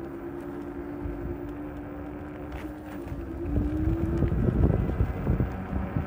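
E-bike motor whining steadily, its pitch rising a little about three and a half seconds in as the bike speeds up. Wind buffeting the microphone grows louder over the second half.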